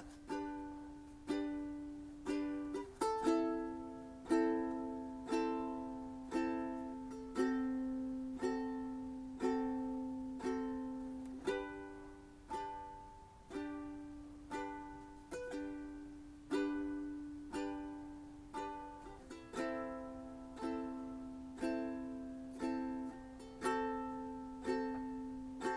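Background music: a plucked string instrument picking single notes and chords at an even, unhurried pace, about one a second, each note ringing and fading away.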